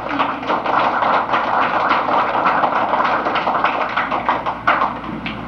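Audience applauding, a dense patter of many hands clapping that thins a little near the end.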